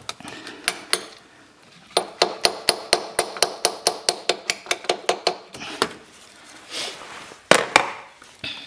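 Light, rapid hammer taps on top of a new SCV (suction control valve) on a Toyota D4D diesel's fuel pump, seating it into its bore. The taps come about five a second for nearly four seconds, and two harder knocks follow near the end.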